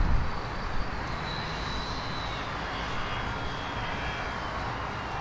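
Airbus A350-1000's Rolls-Royce Trent XWB engines at low taxi power: a steady jet rumble with a faint high whine that slowly drops in pitch.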